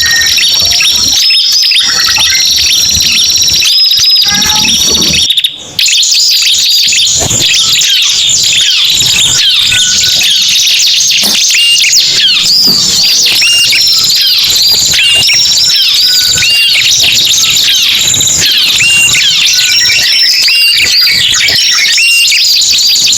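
Bird-lure recording of ciblek (bar-winged prinia) and prenjak calls mixed together: a dense, loud stream of fast high chirps and trills, with short repeated call notes coming every second or two in the later part. The sound cuts out briefly about five and a half seconds in, where the recording loops or is edited.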